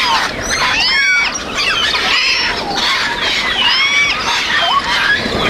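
Parrots calling: many short, arching chirps and whistles overlapping one another over a noisy background hiss.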